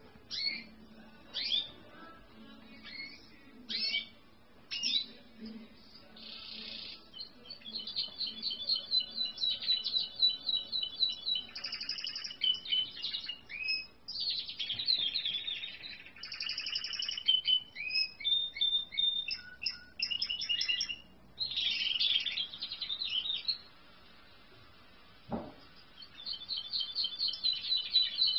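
Yellow Spanish Timbrado canary singing: phrases of fast, rolling trills and repeated chirps, broken by short pauses, with one soft knock near the end.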